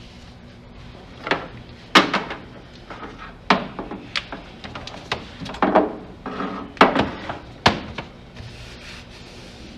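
A series of about eight sharp knocks and clacks, irregularly spaced over some six seconds, from hand work on the pickup cab's interior trim while the headliner is fitted.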